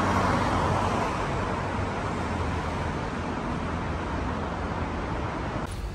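Road traffic noise, a steady rush of passing vehicles that is loudest at the start and slowly eases off.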